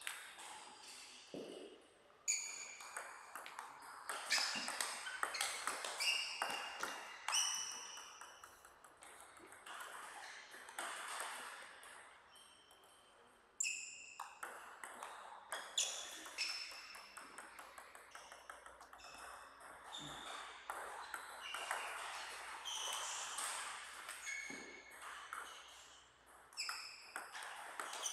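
Table tennis rallies: the celluloid ball cracking off rackets and bouncing on the table, each hit a sharp click with a short high ping, in quick runs broken by brief pauses between points.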